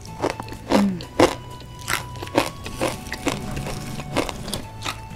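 Crisp mie lidi snack sticks bitten off a bundle and chewed close to the microphone, giving a sharp crunch every half second or so.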